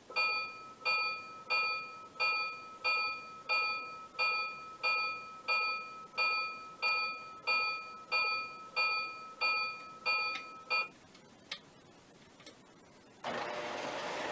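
Electronic locomotive bell from a model diesel's sound system, ringing evenly about once every two-thirds of a second for around eleven seconds, then stopping. About a second before the end, a steady rush of noise comes in and swells as the locomotives start to move.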